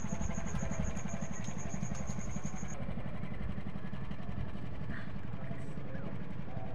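A small engine running steadily with a low, even chugging.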